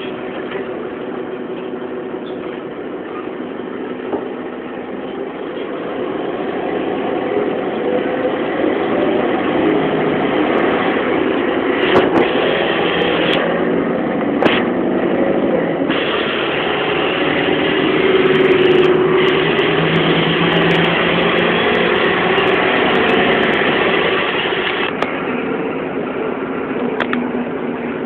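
Inside a BMC 220 SLF low-floor city bus as it pulls away and drives: the engine and road noise grow louder a few seconds in, with a few sharp knocks and rattles from the body along the way, and ease off again near the end.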